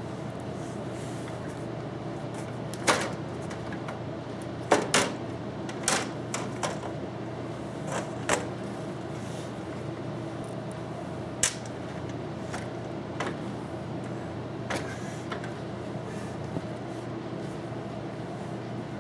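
Scattered clicks and knocks as a Thermaltake PC tower case is opened by hand, its side panel and screws being handled, over a steady low hum.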